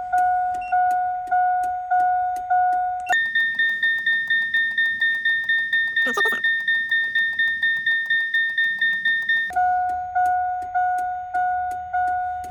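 Truck cab's electronic warning chime repeating with the ignition not yet switched on: slow, lower-pitched beeps about one and a half a second, changing about three seconds in to a faster, higher-pitched chime about three to four a second, then back to the slow, lower beeps near the end.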